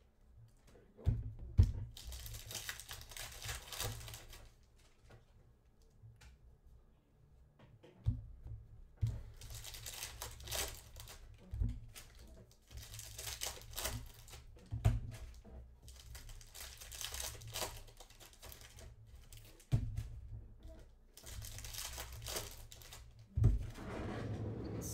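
Plastic trading card pack wrappers being torn open and crinkled, in several bouts of rustling with sharp knocks between them.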